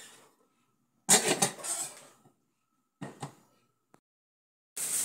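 Aluminium lid of a tamale steamer pot clanking down onto the pot, ringing briefly, then a second, shorter double clatter of the metal lid about two seconds later. A steady hiss starts near the end.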